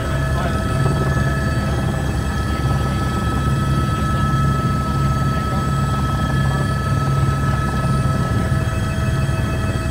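Helicopter engine and rotor noise heard from inside the cabin: a steady low drone with a thin high whine over it.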